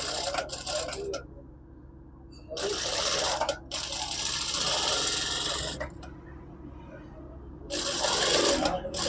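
Sewing machine stitching in stop-start runs, with short pauses between them, as it puts an edge stitch along the folded cuff.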